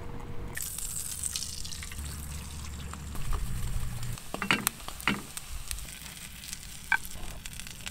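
Food sizzling in a pan, a steady hiss that starts about half a second in, with a few sharp clicks and knocks over it.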